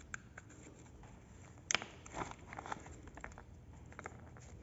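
Faint handling noise: scattered light clicks and rustles, with the sharpest click about a second and a half in, as small parts are handled.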